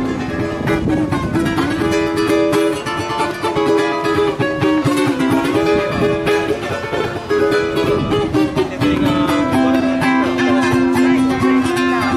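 Background music played on plucked string instruments, with a held melody over quick picked notes.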